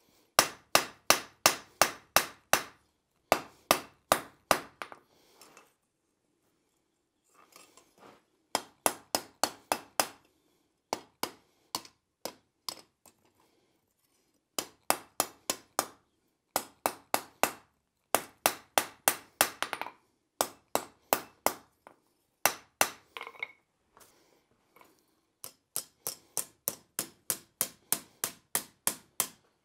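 Blacksmith's hand hammer striking red-hot flat steel bar on an anvil, in quick runs of ringing blows about four a second with short pauses between runs.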